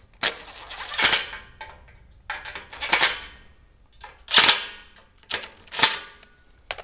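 Cordless impact driver running screws into the metal rails of a battery rack, hammering rattle in four short bursts.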